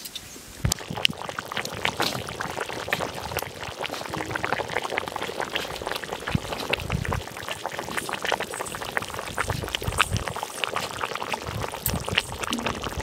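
Chicken curry gravy boiling in a wide pan, bubbling steadily with a dense run of small pops.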